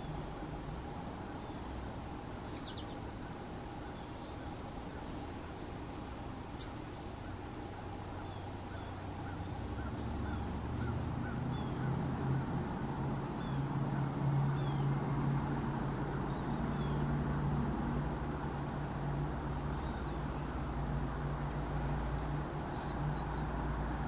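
Outdoor background ambience with no clear call from the flicker: a low steady hum that grows louder about ten seconds in, a faint high insect trill, a few faint bird chirps, and two sharp clicks a couple of seconds apart near the start.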